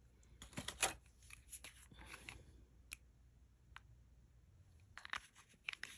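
Jewelry being handled: faint scattered clicks of glass beads and metal findings knocking together, a few in the first second and a cluster near the end.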